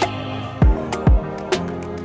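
Background music with a steady beat: a deep electronic kick drum about twice a second, with sharper percussive hits between, over sustained instrumental tones.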